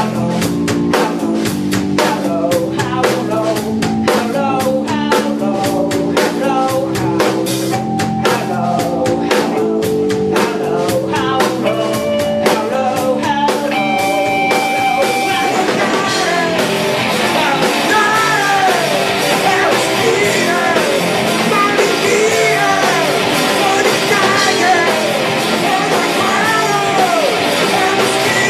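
Punk rock band playing live: drums hitting hard under guitar riffs with held notes, then from about halfway in a denser, fuller guitar sound with a voice singing over it.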